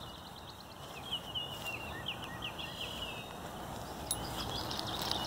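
Wild birds singing: a quick series of short sliding chirps for the first three seconds, then higher, thinner chirps near the end, over a low steady outdoor rumble.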